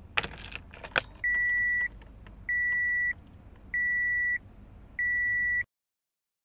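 A car key jangling and clicking into the ignition lock, then four steady high-pitched beeps from the car's warning chime, each just over half a second long and repeating about every 1.25 s. The beeping cuts off abruptly near the end.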